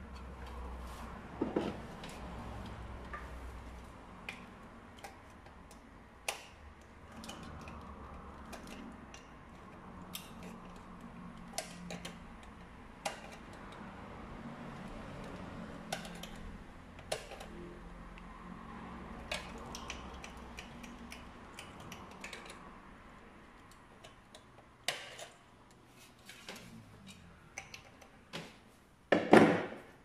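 Scattered clicks, knocks and light metallic clatter of hands working on a sheet-metal coin-slot timer box and the wiring inside it, with a louder knock and rattle near the end as the box is handled shut.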